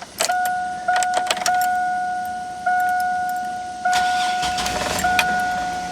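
2005 Chevy Astro van's dashboard warning chime dinging steadily, about once every 1.2 seconds, with key and ignition clicks in the first second and a half. About four seconds in, the engine cranks briefly and starts under the chime.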